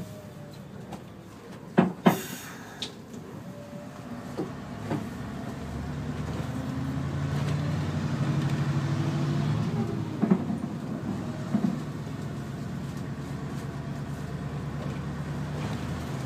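Mercedes V8 diesel engine of a Neoplan N116 Cityliner bus running under way, heard from inside the cabin. The engine grows louder from about six seconds in as the bus pulls harder, then settles. A few sharp knocks come about two seconds in and again around ten seconds.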